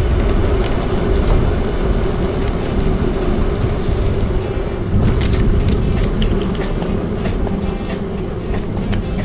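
Wind rushing over the microphone and tyre and drivetrain noise from a loaded touring bicycle rolling along a road. A run of short clicks and rattles from the bike comes in about halfway through.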